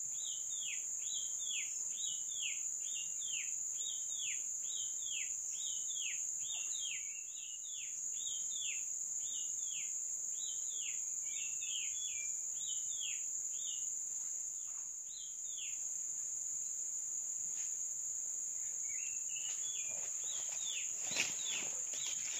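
Tropical forest ambience: a steady, high insect drone with a bird repeating a short falling call about twice a second. The calls pause about two-thirds of the way through and start again near the end, where there is one sharp click.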